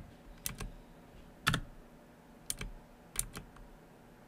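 A few scattered keystrokes on a computer keyboard, with pauses between them and one louder key press about a second and a half in.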